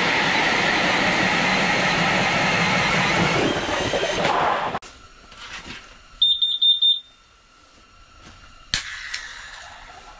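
An ice auger drills through the ice with a loud, steady grinding noise that cuts off suddenly about five seconds in. A rapid run of short, high electronic beeps follows, then a sharp click and one more beep at the end.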